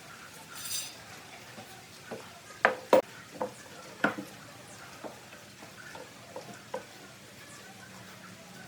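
A scattering of light knocks and clicks, as of small hard objects being handled and set down, with a few sharper knocks around three and four seconds in and a brief hiss just under a second in.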